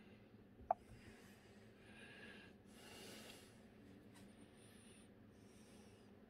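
Near silence: a few faint breaths close to the microphone, with one brief click just under a second in.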